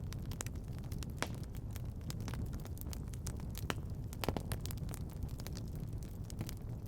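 Fireplace fire crackling: frequent sharp pops and snaps over a steady low rumble, with a few louder pops about a second in and around four seconds in.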